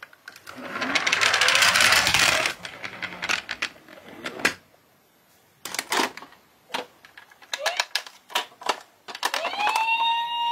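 A die-cast toy police van rolling over a wooden board with a loud rattling run of about two seconds, then clicks and clatter of toy cars being handled in a cardboard box. About a second before the end, a battery toy ambulance's electronic siren comes on as a steady tone.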